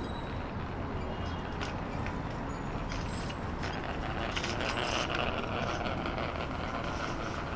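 City street sound: a steady low rumble of traffic with scattered clicks and knocks, and a hiss that swells about halfway through and eases near the end.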